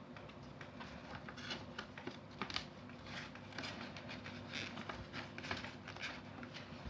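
Sheet of A4 paper rustling and crinkling as it is handled and folded, in irregular short strokes.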